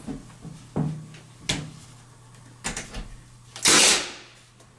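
A few light knocks as window trim is pressed into place, then near the end one loud, sharp shot with a short ringing tail: a Milwaukee cordless 16-gauge finish nailer driving a nail.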